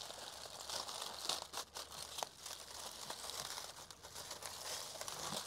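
Aluminium foil crinkling and crackling as it is handled and pulled open, with many small sharp crackles.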